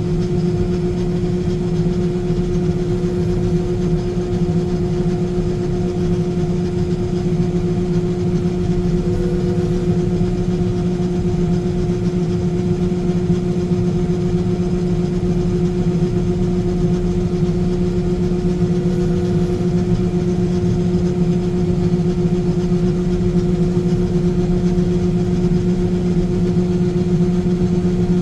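Combine harvester running steadily while cutting corn: a constant engine and machinery drone at one unchanging pitch.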